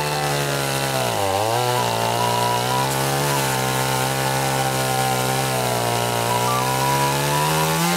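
Chainsaw running flat out with its chain cutting into a wooden tree stump. The motor's pitch sags under load about a second in, holds steady, then falls away sharply at the very end as the throttle is released.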